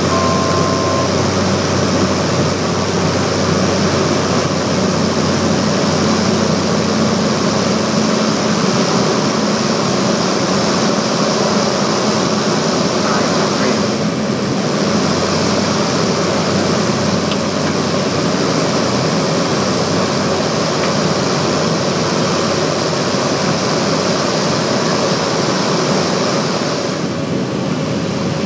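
Cessna 208B Grand Caravan's single PT6A turboprop engine and propeller droning steadily, heard inside the cockpit during the landing approach. The upper part of the sound drops a little near the end.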